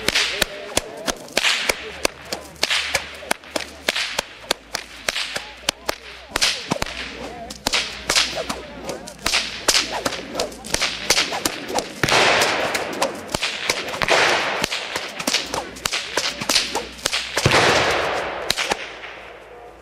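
Whips cracking in rapid succession, a man working two whips at once, one in each hand, in a continuous routine: sharp cracks several a second with hardly a break.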